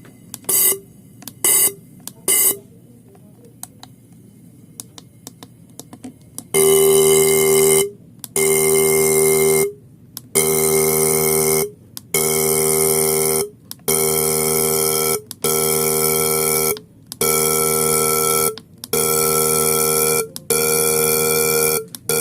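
Toyota 4A-FE fuel injectors being pulsed on an injector cleaning and testing machine. Three short buzzes, then from about six seconds in a steady buzz with spray hiss in repeated bursts of about a second and a half with short gaps. The injectors, clogged with dirt, are being cleaned and now spray a fine white mist.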